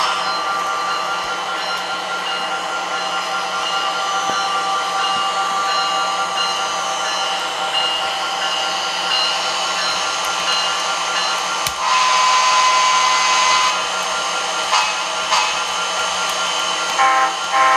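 HO-scale model locomotive running slowly: a steady whirring hiss with several steady tones. About twelve seconds in a louder held tone lasts some two seconds, and a few short blips follow near the end.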